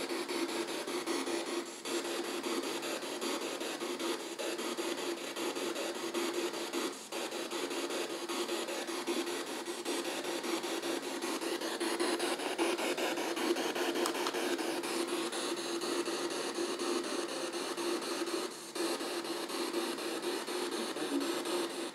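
P-SB7 Spirit Box scanning up the FM band, giving a continuous hiss of radio static through an external speaker, broken by a few brief dropouts.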